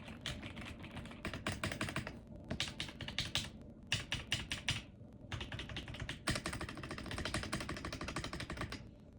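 Typing on a Keychron V6 Max full-size mechanical keyboard with brown tactile switches: rapid runs of keystrokes broken by short pauses about two, five and six seconds in.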